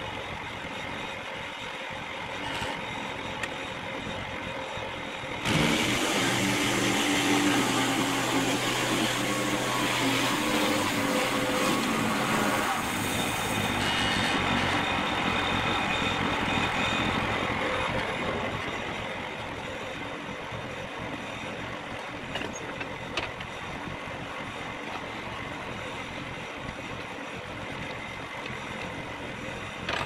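An engine running. About five seconds in it suddenly gets much louder with a steady low hum, then drops back to a lower level after about eighteen seconds.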